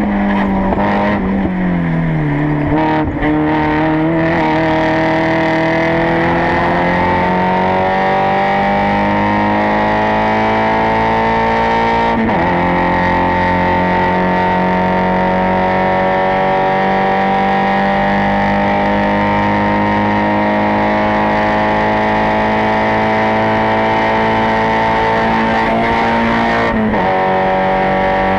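Spec Miata's Mazda four-cylinder race engine under load. The revs fall over the first few seconds, then climb slowly at full throttle, with two brief dips in pitch where it shifts up, about 12 seconds in and near the end.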